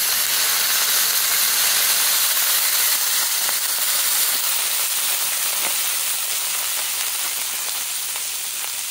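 Warm water hitting the hot steel top of a 17-inch Blackstone griddle and flashing to steam: a loud hiss over the sizzle of frying shrimp, easing off gradually. The water is there to cool the griddle so the shrimp don't burn.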